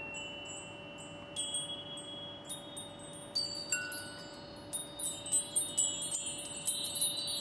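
Chimes ringing: scattered high metallic notes struck one after another, sparse at first and growing denser from about three seconds in, over a faint steady low tone.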